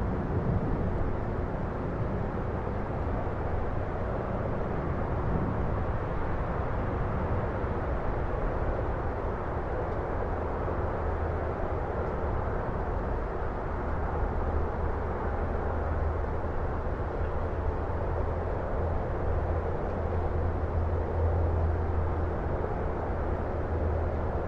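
Distant city ambience: a steady, even hum of far-off traffic. In the second half a deep rumble swells, from an airplane passing overhead.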